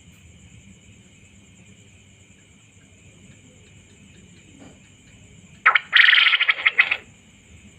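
Male quail calling once: a loud, fast run of notes lasting about a second and a half, starting about five and a half seconds in. A steady high insect drone continues underneath.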